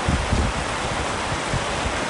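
Heavy rain pouring steadily on a tent: a dense, even hiss with irregular low rumbles underneath.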